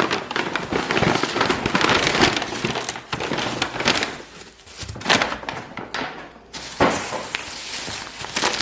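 Grocery bag and food packaging crinkling and rustling as items are pulled out one after another, in loud irregular crackles with two short lulls midway.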